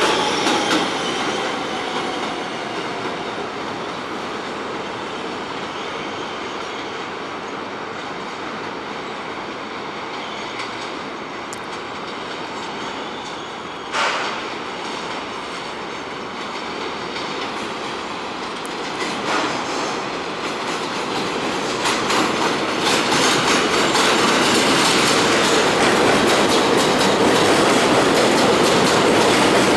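Subway wheels squealing and fading near the start as a train pulls away, one sharp clank about halfway, then an R160 subway train rolling into the station, its wheels clattering over the rail joints and growing louder over the last eight seconds.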